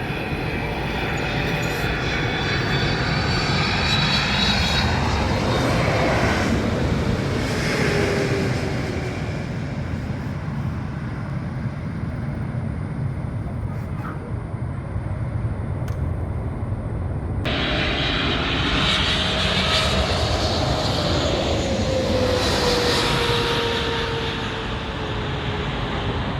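Airplane engines passing close on a landing approach, a loud steady roar with a whine that falls in pitch as the aircraft goes by. About two thirds of the way through the sound changes abruptly to a second aircraft passing, its whine again falling.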